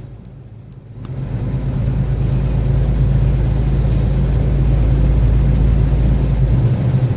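Semi-truck's diesel engine droning steadily with road noise inside the cab while driving. The sound is quieter for the first second, then settles at a steady level; a deep low rumble drops away near the end.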